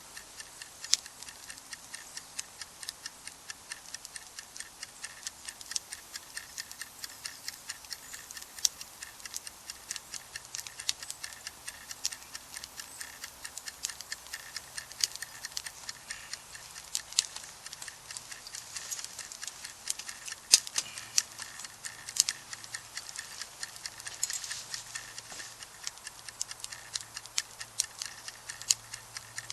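Wood campfire crackling: a steady run of irregular sharp pops and snaps, several a second, over a faint hiss of burning.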